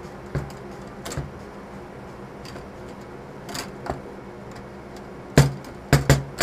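Table football game on a Bonzini foosball table: the ball is struck by the figures and knocks against the table in scattered sharp clicks and knocks, with three loud hits in quick succession near the end.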